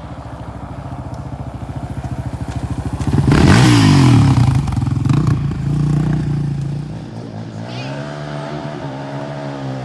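An ATV engine growing louder as the quad comes closer, loudest as it passes about three seconds in, then revving up and down through its gears as it pulls away.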